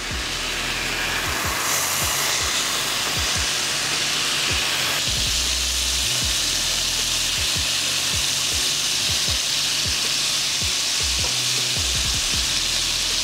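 Bacon strips sizzling and spitting as they fry in hot fat in a nonstick skillet, a steady dense hiss. The sizzle grows fuller about five seconds in, as more raw strips are laid into the pan.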